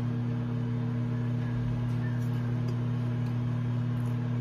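Microwave oven running with a steady low electrical hum while white chocolate chips melt inside.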